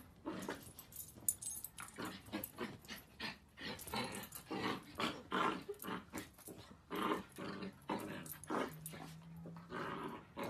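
Miniature dachshund puppy play-growling and yapping in quick short bursts, two or three a second.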